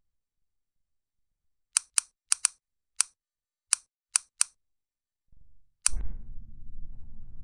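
A series of about nine sharp, short clicks spread irregularly over a few seconds. The last click sets off a low rumbling noise that carries on to the end.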